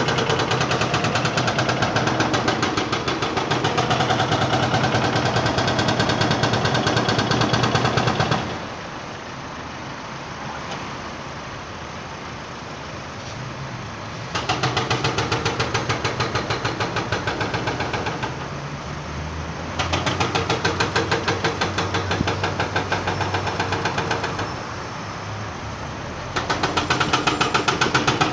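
Heavy demolition machinery hammering, a fast run of knocks in four bursts of several seconds each, with quieter engine running between the bursts.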